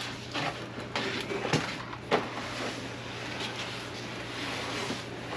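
A few scattered light knocks and clatters of parts and equipment being handled, over a steady low hum; the knocks come in the first half and thin out after about two seconds.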